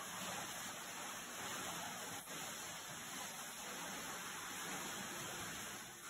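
Steady rush of running water in an indoor infinity pool.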